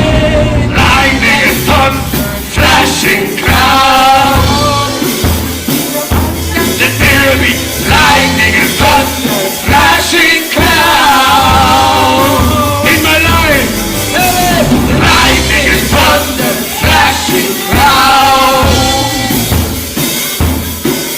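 Worship music: a singer's voice over a band with drum kit, sung phrases of a second or two with short breaks between them.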